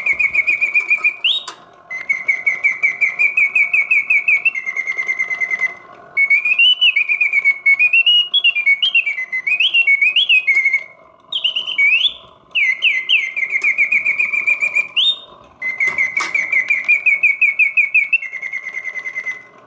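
Japanese vintage mechanical singing bird cage automaton, its bellows-driven whistle playing canary song in continuous mode: fast trilled phrases with pitch sweeps up and down, broken by short gaps. It sings with full voice, hitting all the proper oscillating notes, a sign of a well-serviced bellows and whistle mechanism.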